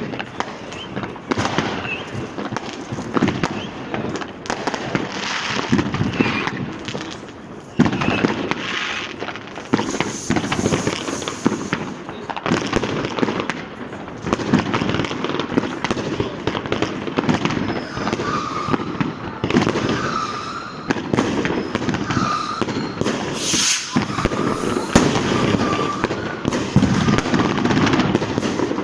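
Dense, continuous street fireworks: an unbroken stream of firecracker bangs and crackling, with many overlapping blasts.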